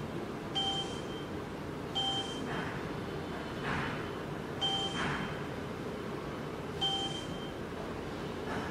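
Short electronic confirmation beeps from the SEC-E9 key cutting machine's touchscreen as buttons are pressed. There are four identical half-second beeps a second or two apart, over a steady low background hum.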